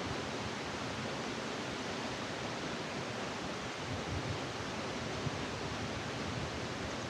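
Steady roar of a large waterfall: an even rush of falling water with no break.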